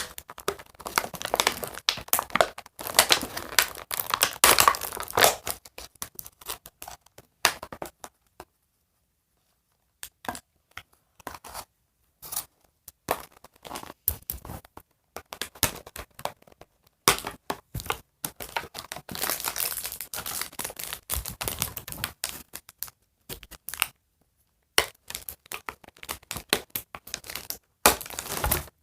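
Doll packaging crinkling and tearing as it is pulled away by hand, in irregular bursts with a couple of short pauses.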